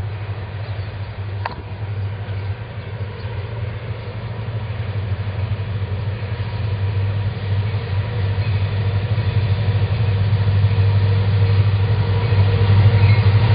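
Diesel engines of an approaching CN freight train's lead locomotives, a steady low rumble growing steadily louder as the train nears.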